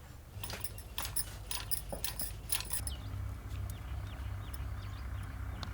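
Light metallic jingling and clinking for the first two and a half seconds or so, followed by a steady low hum.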